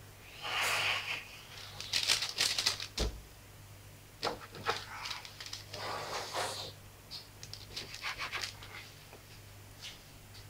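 A plastic dough scraper presses down through soft brioche dough onto parchment paper on a metal baking tray. It makes short scraping and paper-crinkling strokes, with a low knock about three seconds in and lighter clicks later.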